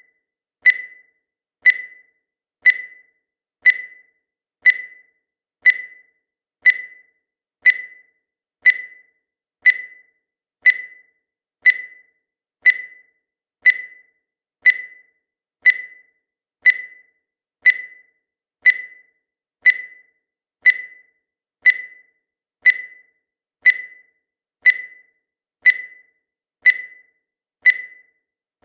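Countdown timer sound effect: a short, high-pitched beep once every second, each fading away quickly, in a steady unbroken rhythm.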